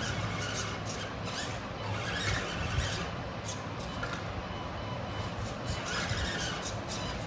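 Electric motor and gear drive of an RC scale crawler whining, a steady noise with a few rising-and-falling swells in pitch as the throttle changes.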